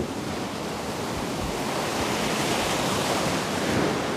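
The Severn Bore, a tidal wave surging up the river: a steady rush of churning water.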